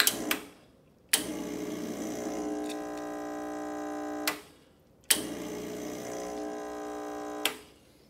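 Rancilio Silvia espresso machine being backflushed against a blind basket: its vibratory pump hums steadily in two runs of about three seconds. Each run starts with the click of the brew switch and ends with a short hiss as the pressure is released.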